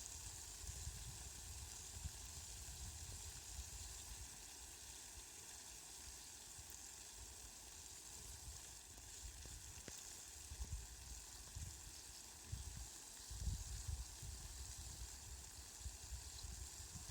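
Rain falling steadily, a faint even hiss, with low rumbles swelling and fading in the second half.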